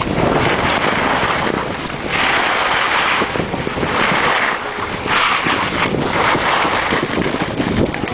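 Wind buffeting the microphone: a steady rushing noise that swells in gusts several times.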